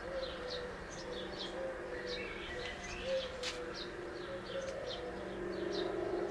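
Small birds chirping with many short, repeated high chirps, over a steady low cooing from a pigeon or dove. A single sharp click about three and a half seconds in.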